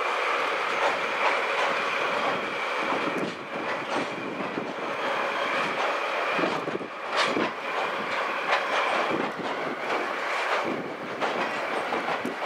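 Freight train of cement tank wagons rolling slowly over a steel bridge, its wheels clicking and knocking over the rail joints. A thin steady squeal from the wheels fades out about three-quarters of the way through.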